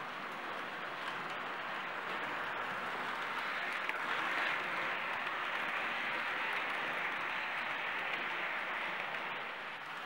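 Märklin H0 model train, a class 110 electric locomotive pulling regional coaches, rolling over C-track with a steady running noise of wheels and motor. It swells about four seconds in as the coaches pass close, then eases off near the end.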